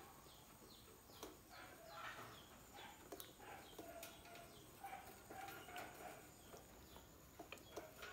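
Near silence, with a few faint clicks and light handling sounds from the fan's wire protective guard as it is fitted on by hand.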